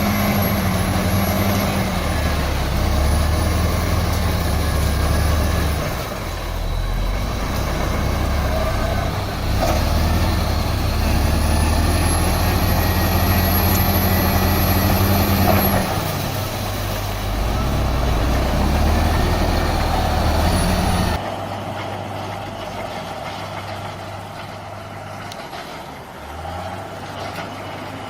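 Bulldozer's diesel engine working, its pitch and load rising and falling, with a faint high whine above it. About three-quarters of the way through, the sound drops abruptly to a quieter engine run.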